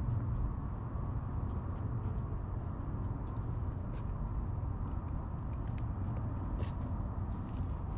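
Steady low rumble of an early-1970s Peugeot UJ-10 ten-speed bicycle being ridden, with tyre noise and wind on the bike-mounted microphone, and scattered light ticks throughout.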